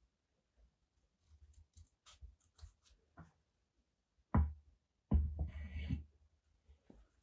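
Paper and stationery being handled on a desk: faint small clicks and ticks, a sharp tap a little past halfway, then about a second of paper rustling.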